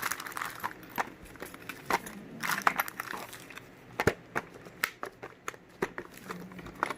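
Unboxing handling sounds: packing material crinkling and rustling, with a string of sharp clicks and knocks as parts are moved, including a distinct knock about four seconds in.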